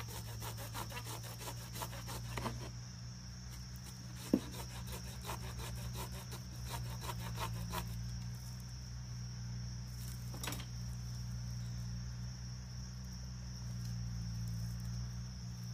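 Steady high insect chorus over a low steady hum, with dense light clicking and rustling as hands work among the branches of a potted conifer bonsai in the first half, and one sharp click about four seconds in.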